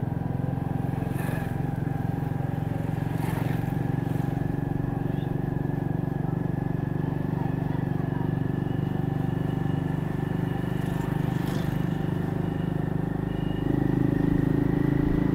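Small vehicle engine running steadily while riding along a street, with a faint high whine above it; near the end the engine note steps up and gets louder as it speeds up.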